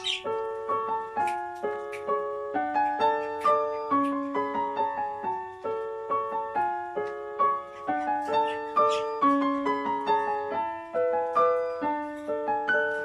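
Background piano music: a steady, even melody of single notes.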